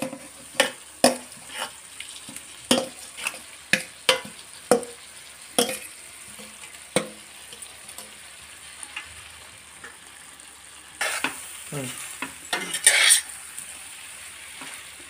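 A steel spoon scrapes and knocks against a steel bowl as spiced fried chicken pieces are tipped into a pot of frying masala. Near the end there is louder stirring in the pot, with sizzling.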